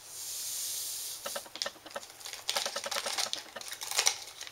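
A soft hiss for about a second, then a run of light, irregular crackles and clicks from a thin plastic water bottle and its screw cap being handled and twisted.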